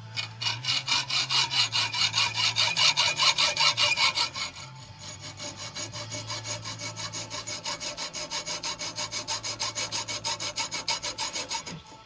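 Metal screws being cut down by hand: fast back-and-forth rasping strokes, about six a second, loud for the first four seconds and then quieter until just before the end.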